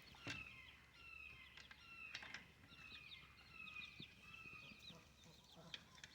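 Faint, soft chicken calls: high notes that fall in pitch, repeated every second or so, with a few light clicks.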